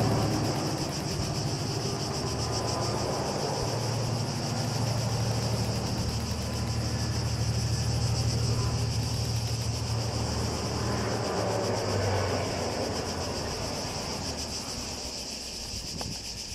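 Distant diesel locomotive hauling a short passenger train, its engine a steady low drone that fades over the last few seconds as the train moves away. A continuous high buzz of cicadas sits under it throughout.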